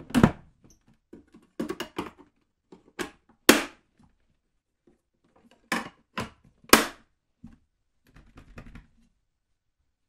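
Plastic parts of a Bosch 700 W juicer being fitted together by hand: a string of clunks and knocks as the clear container and the white feed-tube cover are set onto the base. The loudest knocks come just after the start, at about three and a half seconds and near seven seconds, with a short rattle about eight seconds in.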